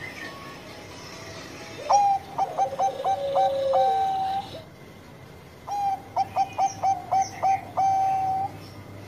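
Zebra dove (perkutut Bangkok) cooing its song twice: each phrase is a quick run of short notes followed by one long held coo.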